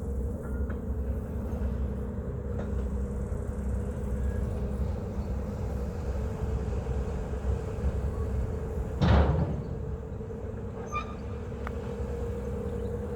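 Steady low engine hum with a constant whine above it, as of a ferry's engine running, and one short, loud rush about nine seconds in.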